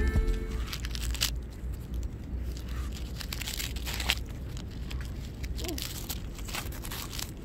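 Shih Tzu tearing and chewing dry fallen leaves, an irregular run of crisp crackles and rustles, two of them sharper about a second in and about four seconds in.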